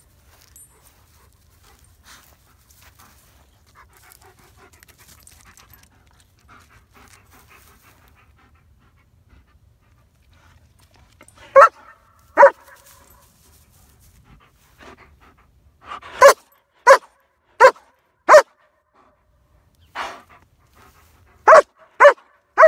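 Dogs panting faintly, then a dog barking loudly in short, sharp barks: two about twelve seconds in, then a run of about eight more over the last seven seconds.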